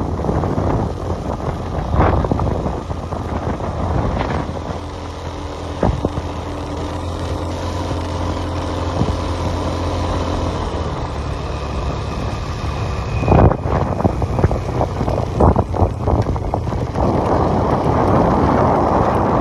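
Motorcycle engine running steadily while riding, with wind rushing on the microphone. A few sharp knocks come about two-thirds of the way through.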